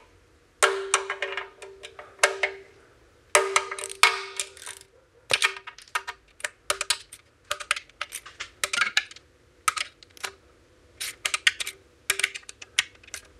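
Ratchet wrench clicking as oil pan bolts are run down to 72 inch-pounds in a circular sequence: several short bursts of rapid clicks in the first few seconds, then scattered single clicks.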